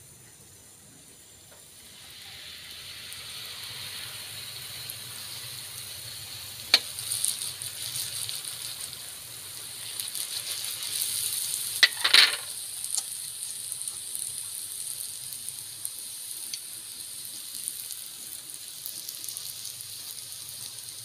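Kembang goyang batter on a metal mould deep-frying in a wok of hot oil: a steady sizzling hiss that swells up about two seconds in. Two sharp knocks stand out, one about a third of the way through and a louder one near the middle.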